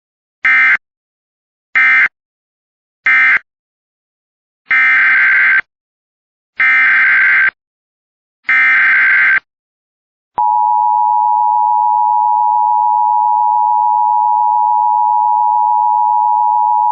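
Emergency Alert System tones. First come three short bursts of SAME data that end one message, then three longer bursts of SAME header data. After that, about three seconds after the last data burst, the two-tone EAS attention signal starts and holds steady.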